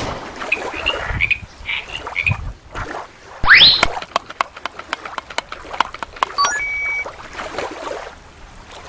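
Frog croaking in short calls for the first couple of seconds. About three and a half seconds in comes a loud rising whoosh, followed by scattered clicks and a quick rising run of beeps just before seven seconds.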